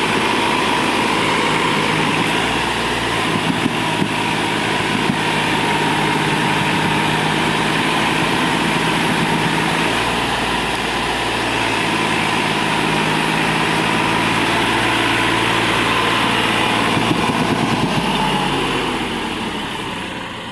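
New Holland 4710 tractor's three-cylinder diesel engine running under load as it pulls a loaded sand trailer up a rutted dirt track, its pitch shifting up and down a few times. The sound fades out near the end.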